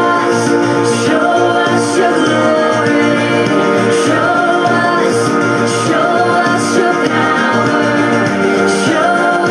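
Worship song with sung vocals over a full band with a steady beat.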